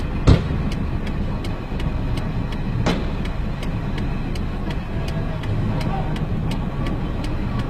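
Two hard blows of a metal water pipe against a taxi's window, about two and a half seconds apart, the first the louder. A steady rumble of street traffic runs underneath.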